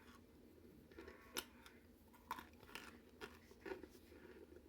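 Faint crunching and chewing as a person bites into microwave-baked cornstarch chunks, a handful of separate crisp crunches.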